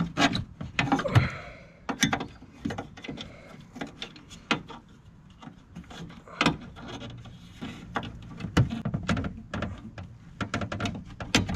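Irregular metal clicks, taps and scrapes as a small screwdriver and bolt are worked into a hole in a metal lawn mower deck.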